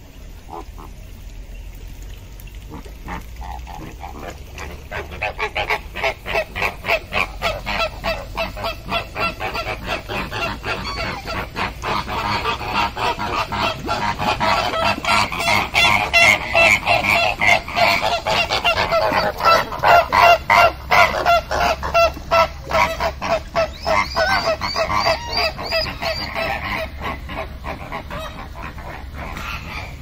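A flock of birds giving rapid goose-like honking calls, several a second. The calls build over several seconds into a loud chorus, then fade toward the end.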